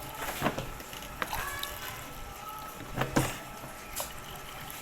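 A handful of scattered knocks and clunks, as of objects being handled in a kitchen while hot water is fetched, the loudest pair about three seconds in.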